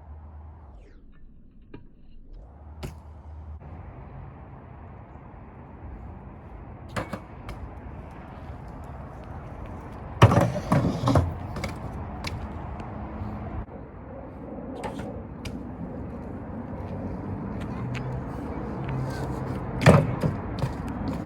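BMX bike being ridden: a steady rolling noise of the tyres, broken by sharp knocks and clacks of landings and hits. The loudest cluster comes about ten seconds in, with another hard hit near the end.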